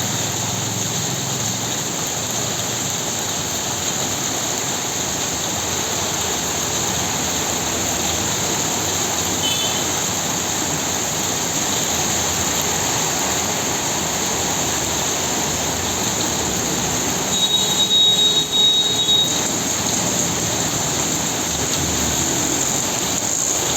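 Heavy rain falling, a steady, even hiss. About three-quarters of the way through, a loud high tone sounds for about two seconds, then stops.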